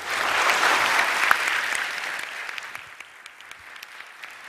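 Large audience applauding at the end of a speech. It starts at once at full strength and thins out after about two to three seconds to lighter, scattered clapping.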